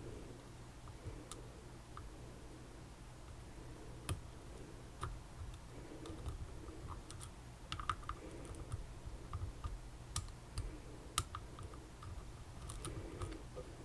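Irregular small clicks and ticks of lock-picking tools working inside a Tesa TK100 lock cylinder, over a low steady hum.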